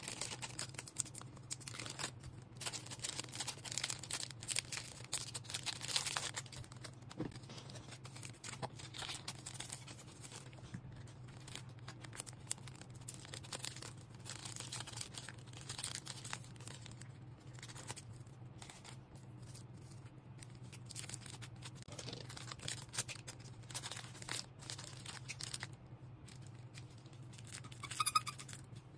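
Packaging being handled at close range: irregular crinkling, rustling and tearing noises over a low steady hum, with a brief higher tone near the end.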